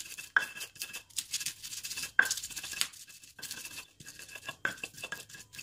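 Stone pestle (ulekan) grinding and pounding shallots, garlic, green chillies and salt on a stone mortar (cobek): irregular knocks and gritty scraping strokes as the ingredients are crushed into a paste.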